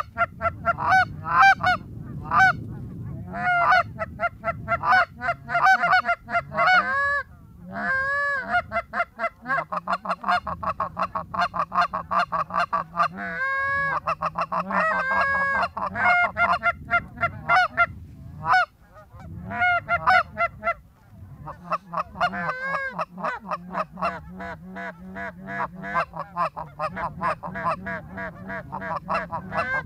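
Canada geese honking and clucking: many rapid, overlapping calls, with brief lulls about a quarter of the way in and again around two thirds of the way through.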